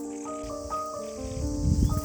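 Background music: a slow melody of held notes stepping from one pitch to the next, over a steady high hiss. Low rumbling thumps build up in the second half.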